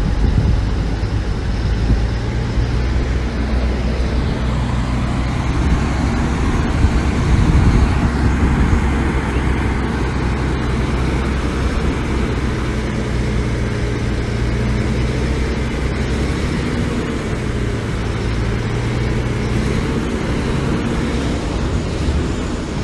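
Heavy diesel engine of construction machinery running steadily under load, a deep continuous drone.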